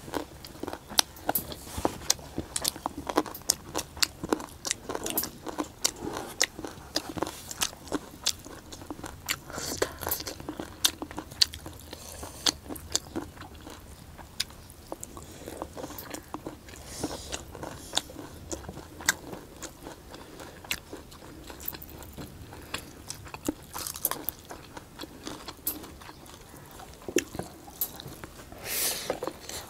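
Close-miked chewing and wet mouth sounds of people eating pork and rice with their hands, made up of many short sharp smacks and crunches. A brief, louder rush of noise comes near the end.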